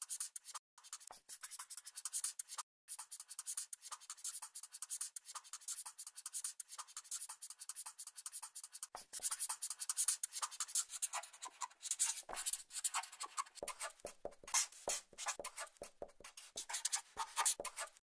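Writing sound effect: a pen scratching on paper in quick, uneven strokes, with a couple of short breaks in the first few seconds.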